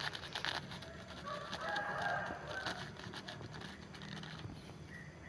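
A rooster crowing in the background: one drawn-out crow starting about a second in and lasting about two seconds. Light rustling of coarse cocopeat-and-husk-charcoal mix being pressed into a plastic wrap by hand.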